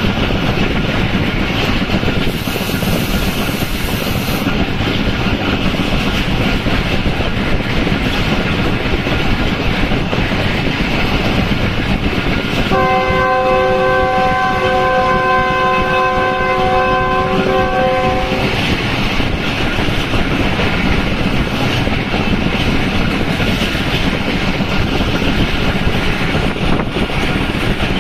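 Passenger train running at speed, heard from an open carriage window: steady running noise of the wheels on the track and rushing air. A little before the middle, the locomotive's horn sounds a chord of several tones, held steady for about six seconds and then released.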